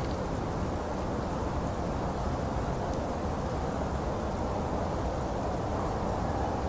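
Steady, muffled background noise with no distinct events.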